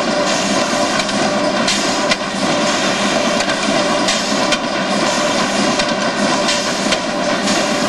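Corrugated box-making machine running with its RollvaC lead-edge vacuum feeder: a loud, steady machine din with several steady tones and light clicks now and then.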